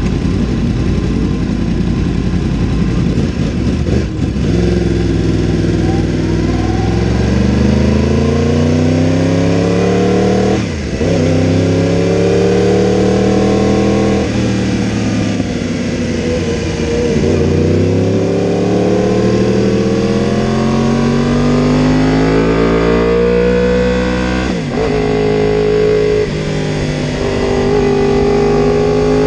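Yamaha R1's crossplane inline-four engine heard onboard, pulling away and accelerating onto the track: the engine note climbs in pitch through each gear and falls back with the throttle, with about six sharp breaks at the upshifts and throttle lifts.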